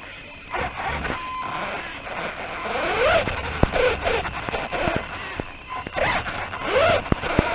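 Small electric motor of a 1/16-scale RC car whining in short bursts, its pitch rising and falling as it speeds up and slows, with scattered clicks and knocks.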